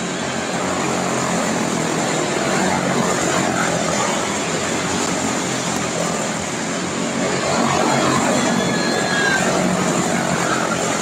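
A pack of quarter midget race cars with single-cylinder Briggs & Stratton Animal engines running flat out around a small oval. The buzz swells and fades as the cars come by, loudest about eight seconds in.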